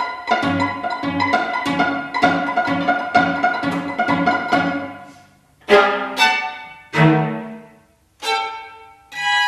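A string trio of violin, viola and cello playing contemporary chamber music. A stream of short, quickly repeated notes over low cello pulses fades out about five seconds in, followed by four separate accented notes that each ring and die away, and a held chord that starts near the end.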